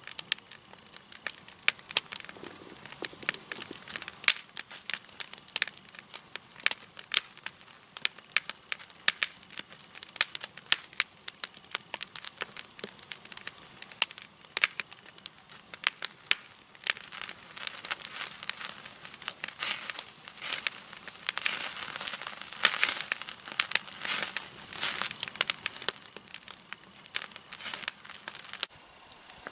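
Wood campfire crackling and popping with many sharp, irregular snaps, busier and louder in the second half. The bratwursts roasting over it are fatty, which makes the fire spark up.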